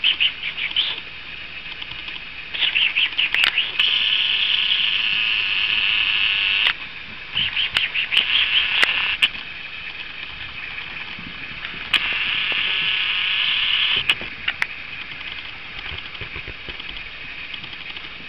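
A Staffordshire bull terrier pup squealing high-pitched during rough play with its mother. The squeals come in several bouts, some rapid and broken, others drawn out for two or three seconds, with a few sharp clicks among them.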